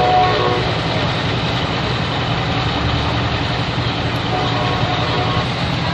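A heavy engine runs steadily with a low rumble, with a short pitched tone at the very start.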